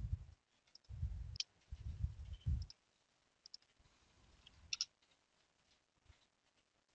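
Faint computer keyboard clicks, a handful of short sharp keystrokes spread over several seconds, with some dull low thuds in the first few seconds.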